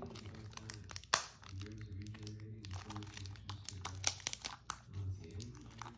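Small clear plastic cups clicking and crinkling as they are handled and set against a plastic tray, in a string of short light knocks with a sharper one about a second in. A faint low hum runs underneath.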